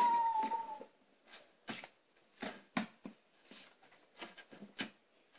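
Scattered light clicks and knocks of hands handling a plastic brick toy tank on a wooden table. The tail of a long, high-pitched call fades out about a second in.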